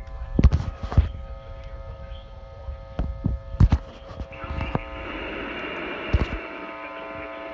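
Radio receiver audio on a poor signal: a steady electrical buzz with several dull thumps, then from about four seconds in a band of static hiss joins it.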